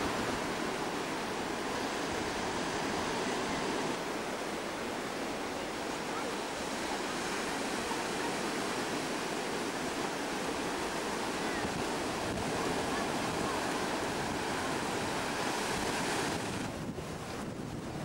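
Sea waves washing and breaking on a beach, with wind buffeting the microphone; a steady rush that drops a little near the end.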